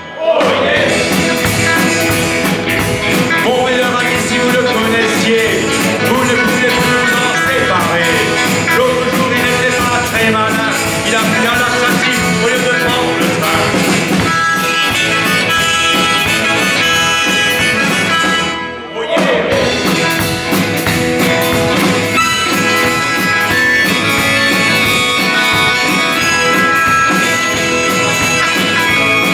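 A live blues-rock band playing: electric guitar, bass and drums, with a harmonica played into the vocal microphone. The band drops out briefly about two-thirds of the way through, then comes back in.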